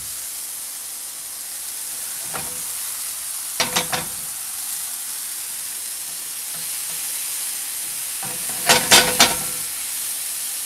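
Sliced Amanita villosa mushrooms sizzling steadily in an oiled nonstick frying pan over medium-high heat. Two short runs of quick clicks, a few just before halfway and a louder cluster near the end, come from the pan being stirred with chopsticks.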